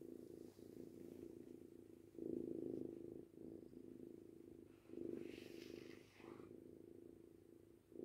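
Kitten purring close up, a low steady purr that swells and eases with each breath, about every one and a half seconds.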